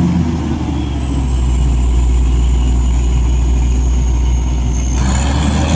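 Truck-mounted borewell drilling rig's engine running steadily with a deep hum, a faint high whine sinking slowly in pitch over it.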